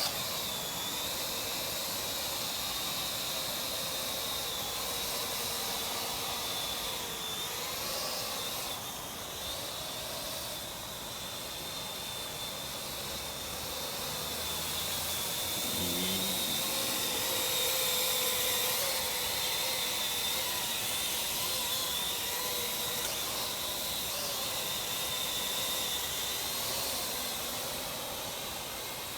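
Parrot AR.Drone quadcopter in flight: a steady high whine from its four electric motors over propeller hiss, the pitch dipping and shifting slightly now and then as it manoeuvres.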